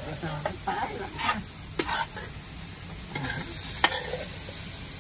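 Metal spoon stirring and scraping chicken and diced vegetables in a large metal pot, with sharp clinks of the spoon against the pot about two seconds in and again near four seconds. The food sizzles quietly underneath as it sautés.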